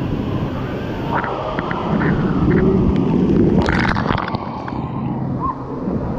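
Waterfall pouring down over the lazy river and spattering straight onto the microphone: a loud rushing wash of falling water, heaviest in the middle, with a burst of sharp splashes about three and a half seconds in.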